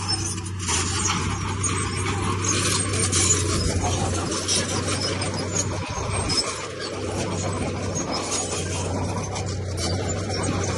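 Komatsu D31P bulldozer's diesel engine running steadily under load, with a continuous scraping, grinding noise of its blade and tracks working through stone and soil.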